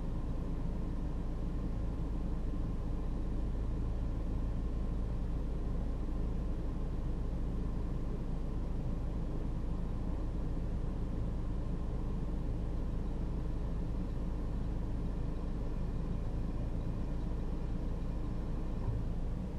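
Vehicle engine idling: a steady low hum with faint steady tones above it.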